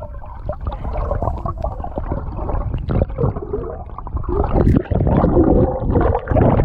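Muffled underwater rumble and gurgling of moving water against a submerged camera, growing louder a little past the middle.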